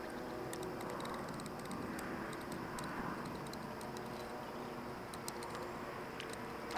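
Light, irregular ticking of a spinning reel as a hooked fish is reeled in, over a steady background hiss.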